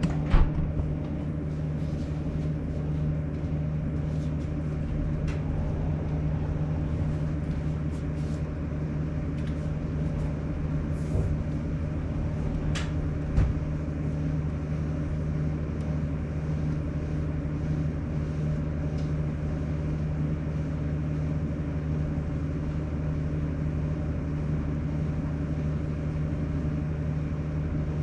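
Sharp AY-J40S-W room air conditioner giving off a steady low droning hum, with one faint knock about halfway through. This is the abnormal noise that persists after a repair of a frequency-related fault.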